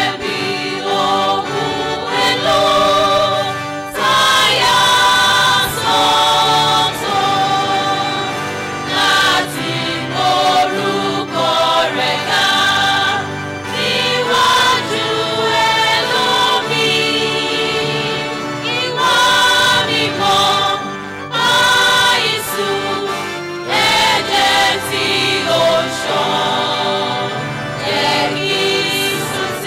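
Church choir of women and men singing a gospel hymn together, in phrases of held notes with short breaks between them.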